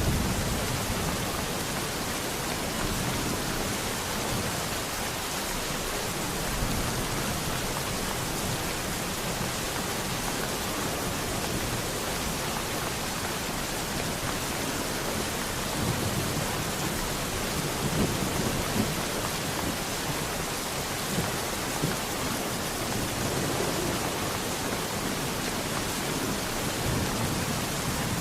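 Steady rain falling, with low rumbles of thunder rising now and then, mostly in the second half.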